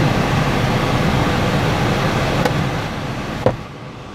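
Steady rush of the car's climate-control blower in the cabin. A single sharp click comes about three and a half seconds in, and the rush is quieter after it.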